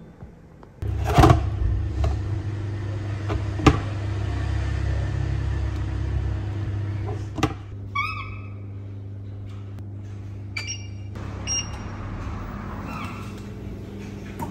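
Steady low hum of an induction cooktop running, with a few sharp knocks. Short electronic beeps come from its touch controls about eight seconds in and again near eleven seconds.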